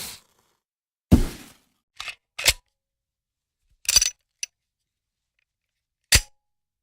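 Gun sound effects: a string of separate sharp gunshot-like cracks and clicks, about six in all, each dying away quickly, with a short cluster of them around the middle.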